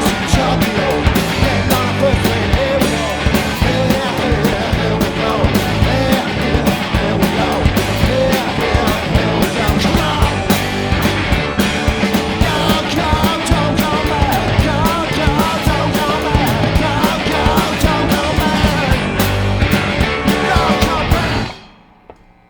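A rock band playing live, with drums, guitars and bass in a loud, dense mix. The music cuts off suddenly near the end.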